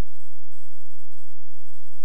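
Faint steady hiss with a thin high whine and some low crackle: the noise floor of an old film transfer, with no motorcycle engine heard.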